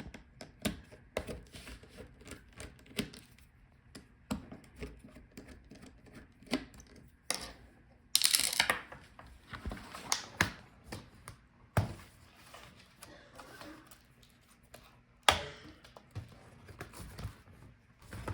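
Laptop's plastic parts clicking and knocking as they are handled, with the display assembly being separated from the palmrest. Scattered light taps throughout, a short scraping rasp about eight seconds in, and two sharp knocks later on.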